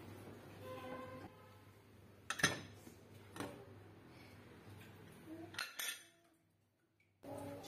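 Aluminium pressure cooker lid knocking and scraping on the pot as it is twisted open and lifted off: a few sharp metal knocks, the loudest about two and a half seconds in.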